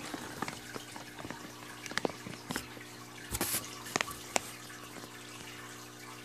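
A plastic fish-shipping bag full of water being handled: scattered crinkles and clicks with water shifting inside, over a steady low hum.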